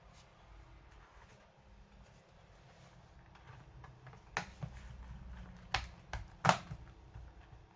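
A few sharp plastic clicks from a Dell Latitude E5440 laptop being worked on, the last the loudest, as parts are pressed or snapped into place.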